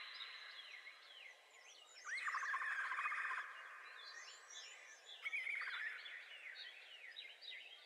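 Birds chirping, with many short chirps and sweeping whistled notes. A rapid pulsed trill comes about two seconds in and lasts over a second, and a shorter one follows about five seconds in.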